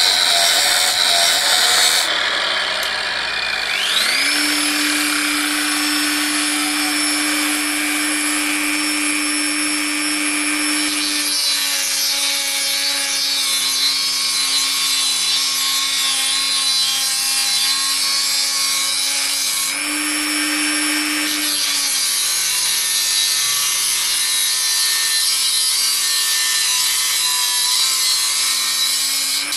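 Dremel rotary tool with an abrasive cut-off disc spinning up about four seconds in to a steady high whine, grinding through a steel ring with a harsh hiss; its pitch sags slightly as the disc bites into the cut and rises again when it eases off. A short noisy burst comes at the very start.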